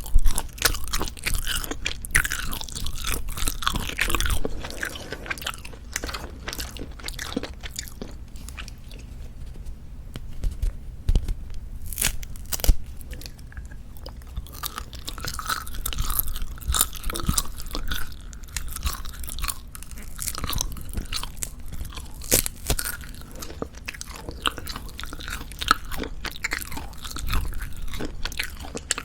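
Close-miked chewing and biting of Jeju black pork jerky: dry, crackly tearing and chewing clicks that keep coming irregularly, with a few louder snaps.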